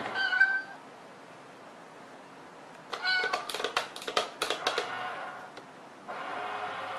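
A pet animal's high-pitched calls: a short cry at the start, a run of sharp clicks mixed with cries about three to five seconds in, and a longer, steadier cry starting near the end.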